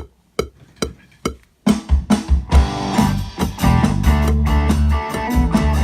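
Four evenly spaced count-in clicks, a little under half a second apart. About one and a half seconds in, a rock band comes in together and plays loudly: electric guitar, bass guitar and drums.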